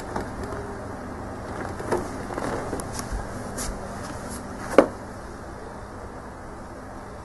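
A few light taps and rustles over a steady background hiss and low hum, the loudest a single sharp knock near five seconds in.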